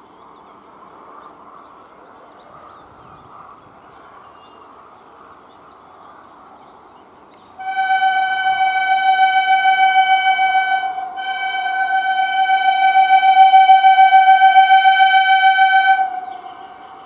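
Electric multiple-unit local train's horn sounding two long blasts on one steady pitch: the first about three seconds, a brief break, then a louder one of about five seconds. Before the horn there is only a faint outdoor background.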